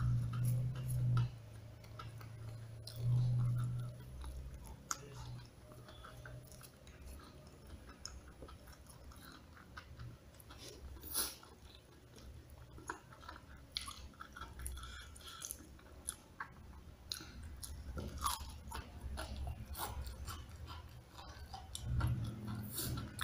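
Close-up chewing and mouth sounds of a person eating crispy smashed fried chicken and rice by hand, with small wet clicks and crunches throughout. A few louder low bursts come near the start, about three seconds in, and near the end.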